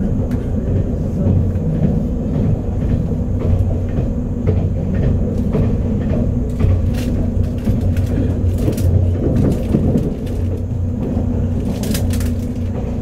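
A 485-series electric train running at speed, heard from inside the passenger cabin: a steady low rumble of wheels on rails, with scattered sharp clicks that come most thickly in the middle and again near the end.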